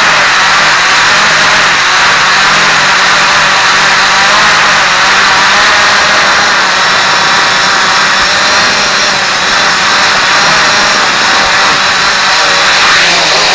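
Quanum Follow Me quadcopter's electric motors and propellers whirring steadily at close range, with a brief rise and fall in pitch near the end.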